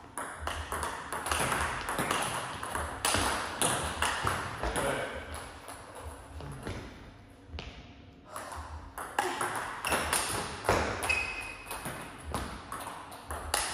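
Table tennis ball being played: a run of sharp, irregular ticks as the ball strikes the rubber of the bats and bounces on the table.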